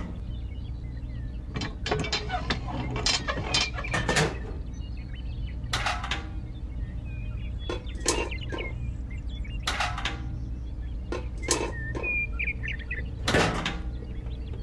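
Small motor of a miniature model machine running with a steady low hum, with irregular sharp clicks and clattering knocks from its mechanism.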